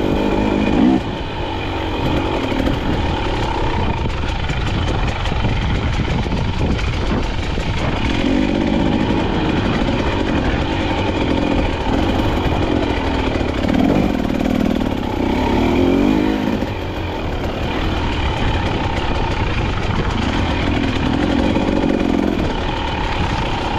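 KTM off-road motorcycle engine pulling at low revs in second gear on a trail climb, its note swelling with the throttle several times.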